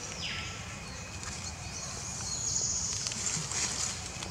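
Outdoor forest ambience: a steady high hiss of background wildlife, with a couple of short falling calls about at the start.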